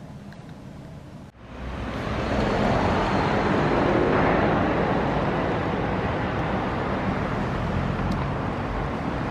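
Steady outdoor road-traffic noise that sets in abruptly about a second and a half in, swells to its loudest near the middle and then eases a little. Before it there is only quiet room sound.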